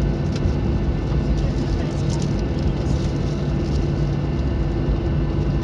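Cabin noise of a Boeing 737-700 taxiing: the steady drone of its CFM56-7 engines at idle, with a low hum and a few light clicks and rattles.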